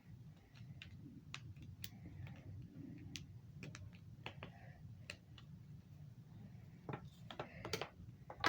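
Faint, irregular clicks and pops from plastic pop tube fidget toys being stretched, bent and joined, with a denser run of clicks near the end.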